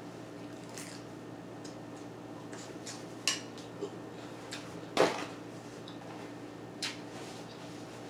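Fork and knife clinking against plates and a metal serving platter: a handful of sharp clicks, the loudest about five seconds in, over a faint steady hum.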